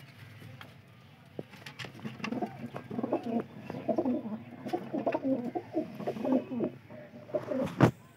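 Domestic pigeons cooing, several birds at once, starting about two seconds in and running for about five seconds. Faint taps are scattered throughout, and a single sharp knock near the end is the loudest sound.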